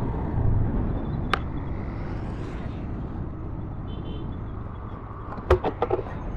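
Motorcycle engine running with a steady low rumble amid town road traffic. A single sharp click comes about a second in, and a short cluster of knocks near the end.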